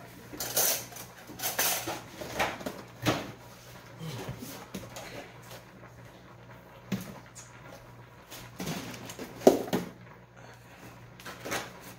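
Kitchen handling sounds while meatloaf is mixed by hand in a bowl: scattered knocks, rustles and the clatter of containers on the counter, with one sharper knock about nine and a half seconds in, over a faint steady low hum.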